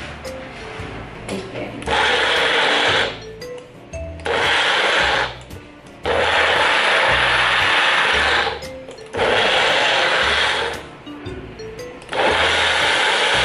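Bullet-style personal blender blending spinach, banana, orange, milk and honey into a smoothie. It runs in four separate pulses as the cup is pressed down onto the base: about two seconds in, briefly around four seconds, longer from about six to nine seconds, and again near the end. Each pulse starts and stops abruptly.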